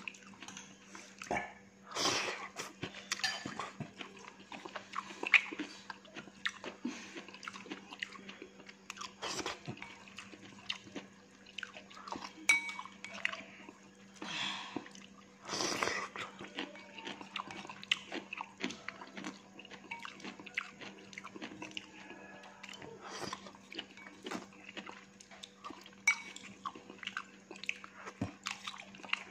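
Close-up eating sounds: chewing fried flat rice noodles, with scattered light clicks of wooden chopsticks against a ceramic bowl. A steady low hum runs underneath.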